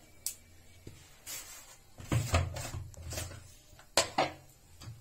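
Scattered knocks and clunks of kitchen things being handled and set down beside a steel pan, with two sharp clicks in quick succession about four seconds in.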